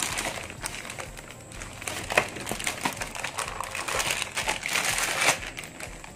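Clear plastic bag crinkling and rustling as a handheld wireless microphone is pulled out of its wrapping. A dense crackle of small crackles that grows loudest about four to five seconds in, then drops off near the end.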